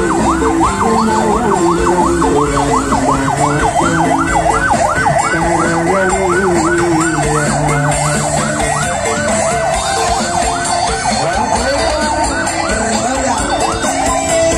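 Ambulance siren in a fast yelp, its pitch sweeping up and down about three times a second, cutting off about twelve seconds in.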